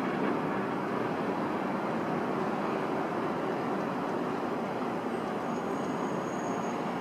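R42 subway train rolling slowly toward the station on an elevated track: a steady noise of steel wheels on the rails.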